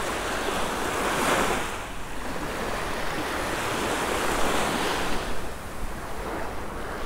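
Small surf waves breaking and washing up the beach, swelling about a second in and again a few seconds later, with wind rumbling on the microphone.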